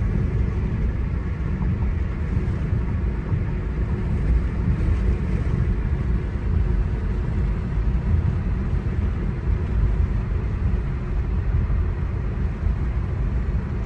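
Steady low rumble of a car driving along: road and engine noise with no let-up.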